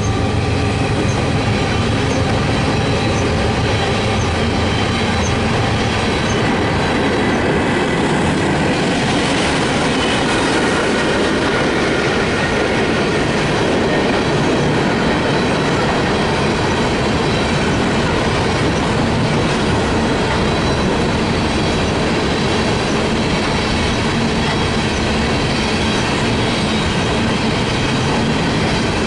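Empty coal hopper cars of a freight train rolling past at steady speed: a continuous rumble and clatter of steel wheels on rail, with thin steady high tones over it. A low engine hum from the departing locomotives fades out about a second in.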